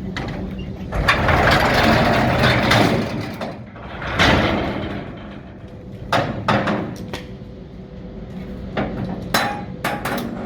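Railway sounds: a train or locomotive humming steadily, with two bursts of rushing noise in the first half and several sharp metallic clanks later on.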